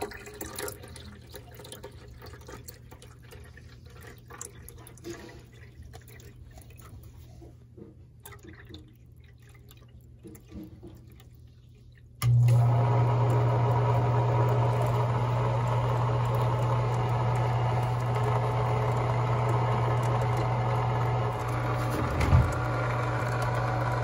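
Water trickling and dripping as it is poured into a condensate pump's reservoir. About twelve seconds in, the pump's electric motor switches on with a loud steady hum and keeps running as it pumps the water out, started by the rising water level in the tank.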